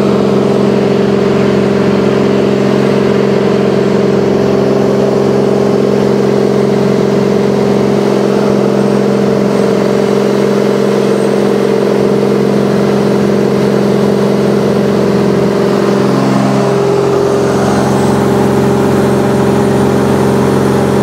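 1948 Ryan Navion's single piston engine and propeller running steadily in flight, heard from inside the cabin. The pitch dips briefly and settles at a slightly different note about sixteen seconds in.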